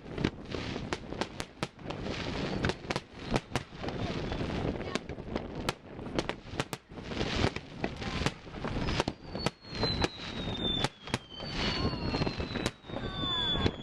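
Fireworks display: a rapid, irregular run of bangs and crackles, with high whistling tones that slowly fall in pitch in the second half.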